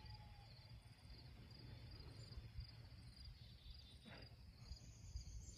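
Near silence: faint insect chirping, repeating at an even pace, over a low rumble, with a brief faint swish about four seconds in.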